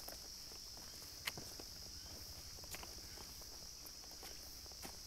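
Insects buzzing in a steady, high-pitched chorus, with footsteps on a dirt trail and scattered sharp clicks, the loudest about a second in.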